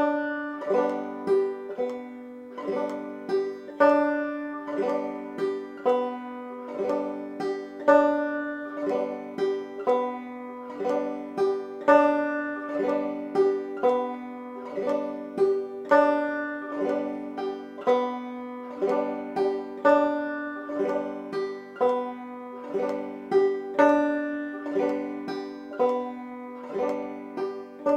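Five-string banjo tuned to open G, played clawhammer (frailing) style: a steady, even strum pattern alternating between the first and second strings.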